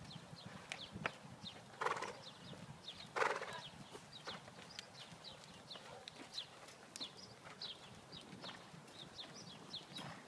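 Hoofbeats of a thoroughbred cantering on deep arena sand, dull and faint, with two louder rushing bursts about two and three seconds in.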